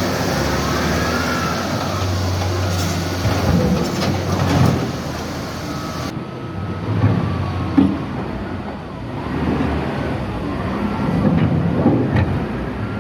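Hitachi excavator's diesel engine running steadily at work, with several sharp knocks and clatter. The sound changes abruptly about six seconds in.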